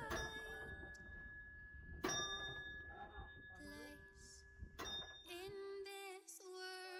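Background music: a melody of held notes stepping from pitch to pitch, over a low rumble that stops about six seconds in, with a sharp knock about two seconds in and another near five seconds.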